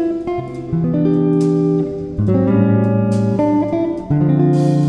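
Instrumental background music, with held notes and chords changing every second or so.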